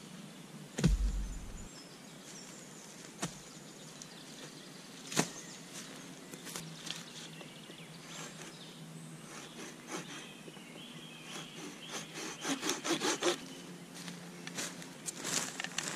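Wood being worked by hand: a few separate knocks, then a quick run of rasping strokes about three-quarters of the way in.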